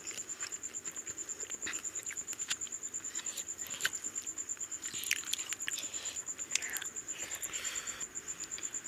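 Close-miked eating sounds: wet clicks and smacks of chewing and of fingers squishing rice and mutton curry, over a steady high-pitched tone that pulses rapidly.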